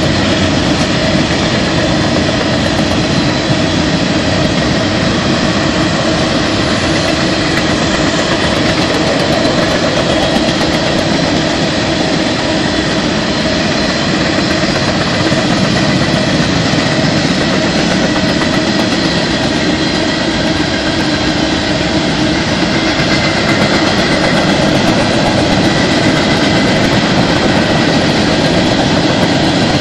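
BNSF freight train's loaded hopper cars rolling past, a steady noise of steel wheels running on the rails that neither builds nor fades.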